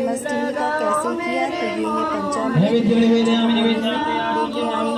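A group of people singing a devotional bhajan together without instruments, several voices overlapping.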